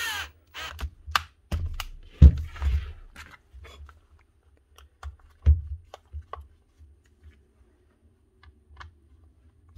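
Light clicks and knocks of plastic and small metal parts as a Bosch angle grinder is put back together by hand, with a louder knock about two seconds in and another about five and a half seconds in, then only sparse faint clicks.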